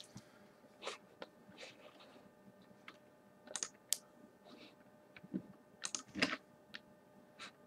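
Faint, irregular typing and clicking on a computer keyboard, a few keystrokes at a time with pauses between them.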